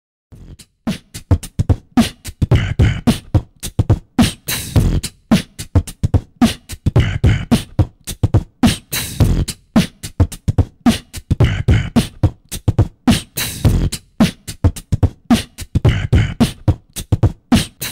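Beatboxing: a steady, driving beat of mouth-made kick, snare and hi-hat sounds with heavy low kick hits, starting about half a second in.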